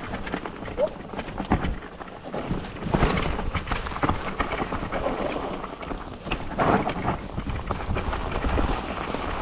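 Mountain bike descending a dirt singletrack: tyres rolling and crunching over earth and dry leaves, the bike clattering with many small knocks over bumps, and a low rumble of wind on the microphone.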